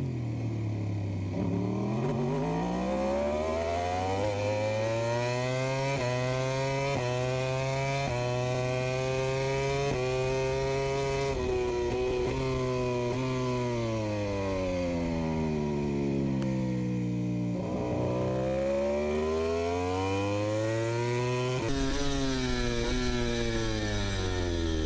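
MotoGP racing motorcycle engine heard from its onboard camera, revving hard and climbing through a series of quick upshifts, then falling in pitch as the bike brakes and changes down through the middle, before accelerating through the gears again.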